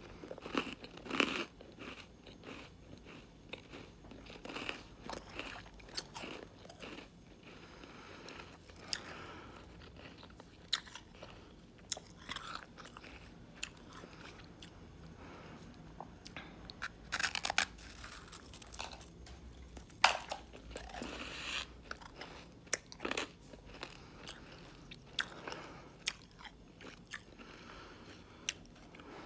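A person biting into and chewing shaved ice made from frozen sparkling water, with irregular sharp crunches that come unevenly, some much louder than others.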